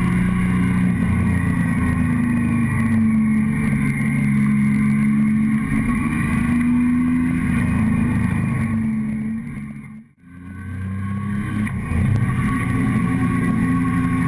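Motorcycle engine running under way, heard from a camera mounted on the fuel tank, its pitch rising and falling gently with the throttle. About ten seconds in the sound fades down to a brief near-silent dip, then the engine comes back.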